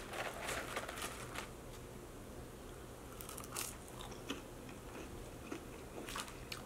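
A person chewing a mouthful of crinkle-cut French fries close to the microphone: quiet wet mouth sounds with scattered small crunches and clicks. Near the end a fork clicks against the plastic salad bowl.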